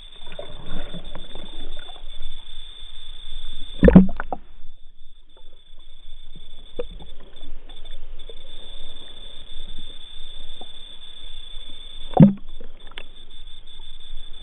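Muffled water sound heard through an underwater camera housing: faint crackling over a steady high whine, with two dull thumps, about four and twelve seconds in.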